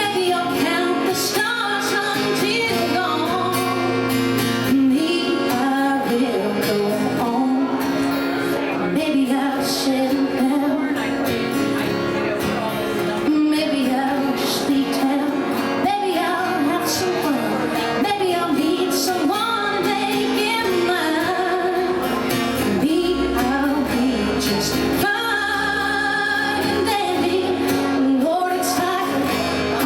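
A song with a female singing voice over instrumental accompaniment.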